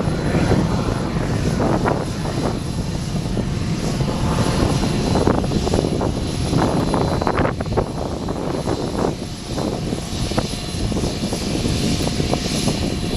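Eurofighter Typhoon twin-turbofan jet noise at full power on departure: a loud, steady rush across the whole range, shot through with irregular crackles.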